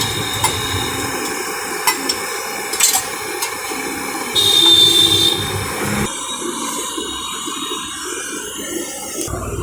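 Sharp metal clinks, a few of them spaced about a second apart, over a steady background hiss. About four and a half seconds in comes a short, high-pitched ringing tone, the loudest sound, and the background changes abruptly about six seconds in.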